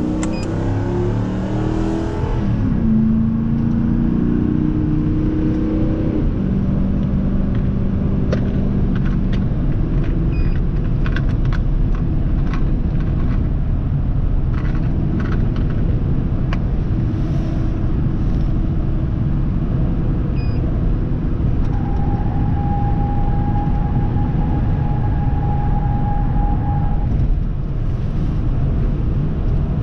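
Car engine and road noise from a vehicle being driven, a steady low rumble with stepping engine pitch in the first few seconds as it accelerates. A steady tone sounds for about five seconds in the second half.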